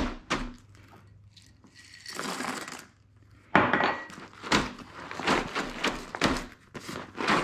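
Loose dried food poured into a bag and rattling inside it as the bag is filled to make a sandbag. It starts with a couple of sharp clicks, then a soft pour, and about halfway through a run of dense, irregular clattering.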